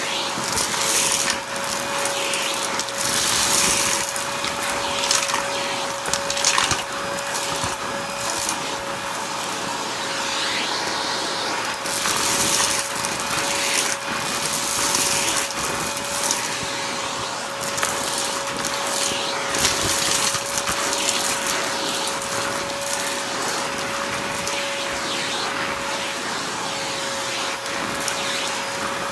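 Vacuum cleaner running with a steady whine, crackling and rattling in bursts as it sucks crunchy debris out of a shag rug.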